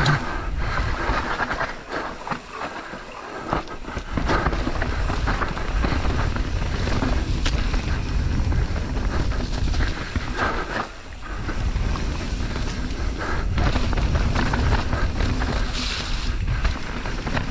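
Wind rushing over a helmet-mounted camera's microphone during a fast mountain-bike descent, with tyres rolling over wet dirt and the bike rattling and knocking over bumps. The noise eases briefly about two seconds in and again near the eleven-second mark.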